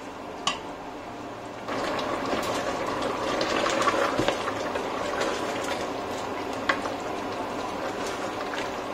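Goat-meat curry with freshly added tomatoes cooking on high heat in a steel pressure-cooker pot while being stirred: a steady hiss and crackle with small clicks of the spoon against the pot, growing louder about two seconds in.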